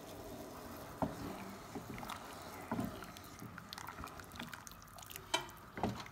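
Wooden spoon stirring tomato soup in a metal saucepan: soft liquid sloshing with a few light knocks of the spoon against the pan.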